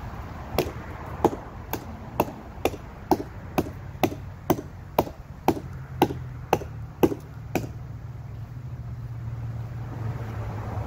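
Quick chopping strokes into a fallen tree branch with a short hand-held tool, about fifteen sharp strikes at about two a second, stopping about three-quarters of the way through. A steady low hum comes in over the second half.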